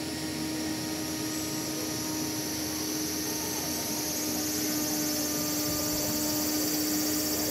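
Steady high-pitched insect drone with a steady low hum beneath it.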